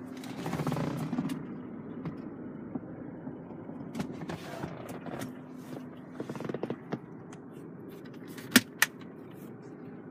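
Creaks and rustling of a car's interior trim being handled, with small knocks, then two sharp clicks close together near the end.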